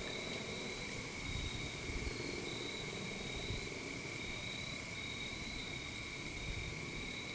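Insects chorusing: a steady high-pitched trill, with a second, higher trill that comes and goes.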